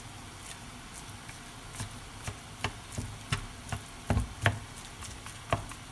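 A plastic spatula tapping and scraping against a nonstick frying pan as it breaks up raw chicken mince: a string of short clicks starting a couple of seconds in, the loudest, with a dull thud, past the middle. A faint steady hiss lies underneath.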